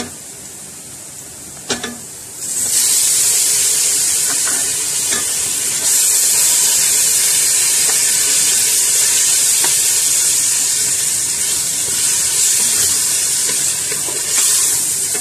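Raw beef mince frying in hot oil with onions and cumin in a pressure cooker, with a wooden spatula stirring and tapping. The sizzle comes in loud about two and a half seconds in as the mince meets the oil, and holds steady while it is broken up and stirred.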